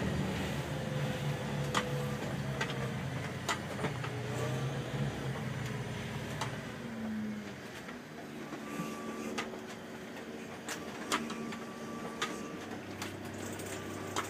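A boat's engine running with a steady low hum that fades about halfway through, with scattered sharp clicks and knocks throughout.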